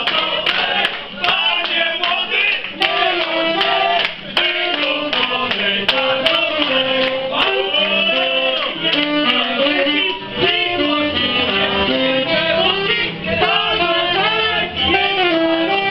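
A live band playing a song with a singer, saxophone and guitar, and people clapping along in time.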